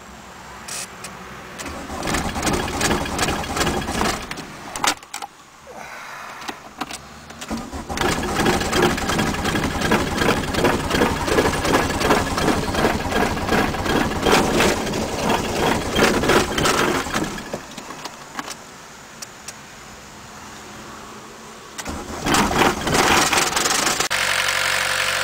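Repeated attempts to start a 1981 VW Rabbit's turbocharged diesel engine that has sat for about four months. The engine is cranked in three bursts with quiet pauses between them: a short one, a long one of about nine seconds, and another short one near the end.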